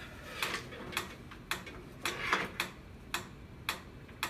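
Mechanical metronome ticking steadily, about two ticks a second.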